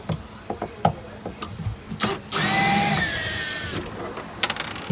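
Milwaukee FUEL cordless drill-driver backing out a screw: its motor whines for about a second and a half, the pitch dipping slightly partway through. Small clicks and knocks of the bit and panel come before it.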